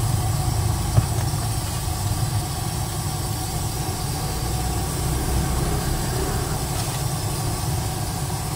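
Steady low roar of a gas wok burner running under the wok, with a single sharp knock about a second in.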